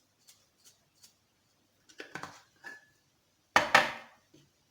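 Kitchen utensils and containers being handled: faint small clicks, a clatter with a short ringing clink about two seconds in, then two sharp knocks in quick succession, like a spoon or container striking a bowl.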